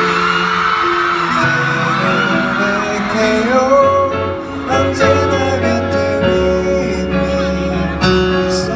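A male voice singing a slow pop song live into a handheld microphone over a backing track, heard from the audience in a large concert hall.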